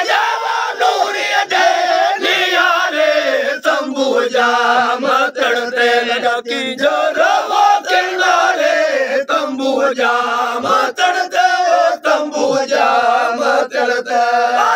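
Several men singing a Sindhi raag kafi together in full voice without instruments, in the chant-like group style of the raagi faqeers, their voices overlapping in long, bending held notes.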